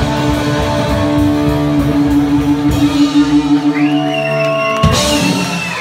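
Psychobilly band playing live through a club PA, electric guitar and sustained chords over bass and drums at the close of a song. The bass and drums stop almost five seconds in, leaving a high ringing tone.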